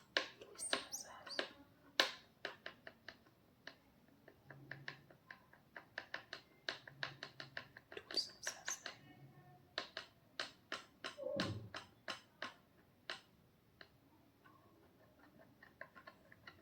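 Hands massaging an oiled scalp and hair: a quick, irregular run of sharp clicks and pats, several a second.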